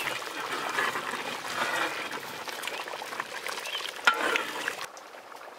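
Metal ladle stirring a thick, boiling masala gravy in a large metal pot, with a sharp knock of the ladle about four seconds in; the stirring dies down near the end.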